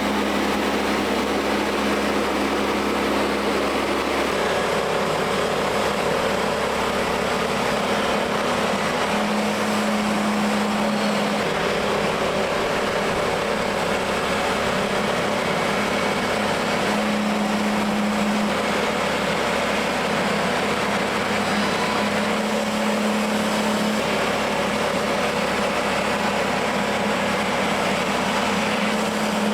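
Petrol engine of a portable sawmill running steadily under load while milling a log into lumber.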